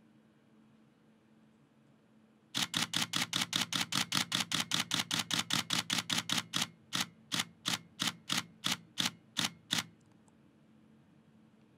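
Nikon D7200 DSLR shutter and mirror firing in continuous burst, about six frames a second for around four seconds, then dropping to about three a second for a few more seconds before stopping: the camera slowing as its buffer fills.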